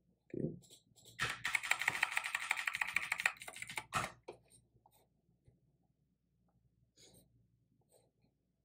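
Computer keyboard typing: a quick run of keystrokes lasting about two seconds, a single sharper key press a moment later, then a few faint scattered clicks near the end.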